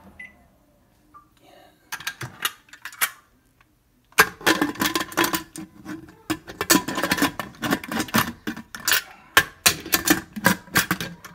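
Stainless steel pressure cooker lid being set on the pot and worked into place: scattered metal clicks at first, then from about four seconds in a quick run of clattering and clicking, metal on metal with a slight ring.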